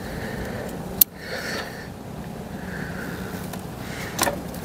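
Plastic wiring-plug clips on a car's fuse box module being pried with a small pick. There is a sharp click about a second in and a few smaller clicks near the end, over steady background noise.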